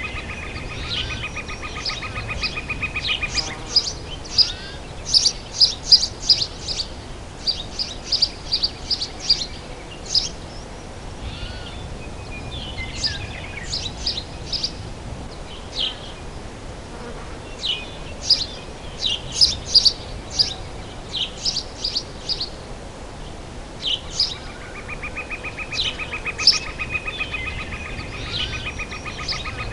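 Summer forest ambience: several birds chirping and tweeting in short, repeated high calls. A steady insect buzz sounds for the first few seconds and returns in the last five seconds.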